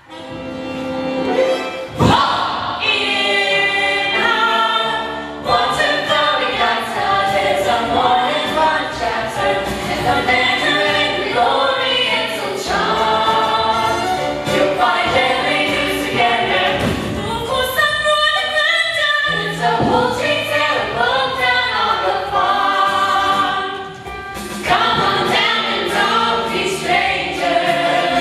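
A chorus of voices singing a musical-theatre song together.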